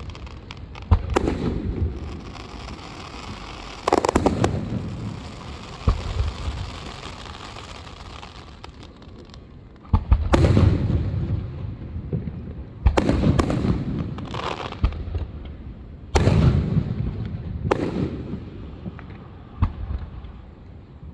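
Aerial fireworks bursting: about ten sharp booms at uneven intervals, some in quick pairs, each trailing off in a long rolling echo.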